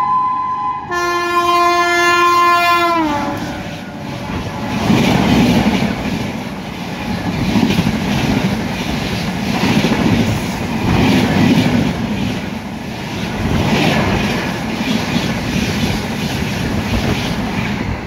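Horn of the Taj Express's WAP-7 electric locomotive sounding a long blast, its pitch dropping sharply about three seconds in as the locomotive passes at about 130 km/h. Then the coaches rush by with a loud rumble and wheel clatter over the rails that swells and fades.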